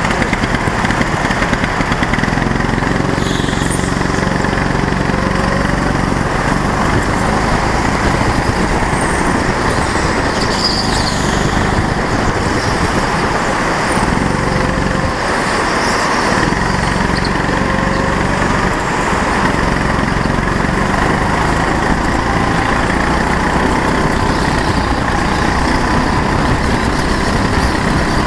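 Go-kart engine running at racing speed, heard from a camera mounted on the kart under a loud, steady rush of noise; the engine's pitched note comes and goes as the kart laps.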